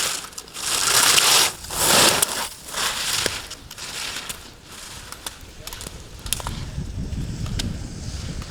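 Ski edges scraping and carving on hard-packed snow in slalom turns, a noisy swoosh about every second, loudest over the first two and a half seconds and then weaker, with a few sharp clicks.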